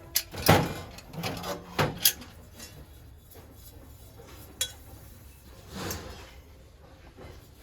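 Brass utensils being handled and set down: a few separate knocks and scraping clatters, the loudest about half a second and two seconds in, with quieter ones later.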